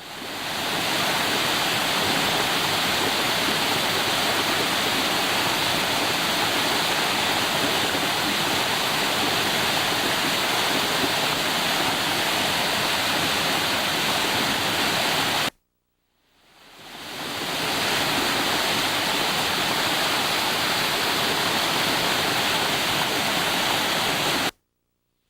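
Steady rush of a waterfall, heard in two takes. It fades in at the start, breaks off to silence about fifteen seconds in, fades back in, and cuts off again near the end.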